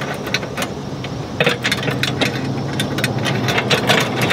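Sailboat steering chain and wire cable clinking and rattling in the wheel pedestal as the cable is pulled through, many quick irregular clicks that grow busier about a second and a half in. A steady low hum runs underneath.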